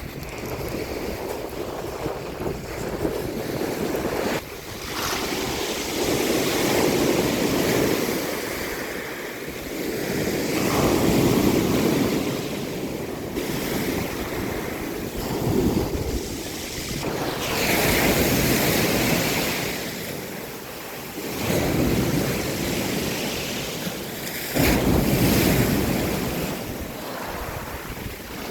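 Sea waves washing in and breaking on the shore, swelling and falling every few seconds, with wind buffeting the microphone.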